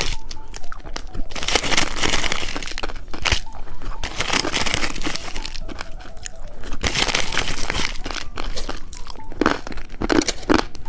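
Close-up crunching and crackling of candy, likely the foot-shaped candy with popping candy, in several bursts with short pauses between.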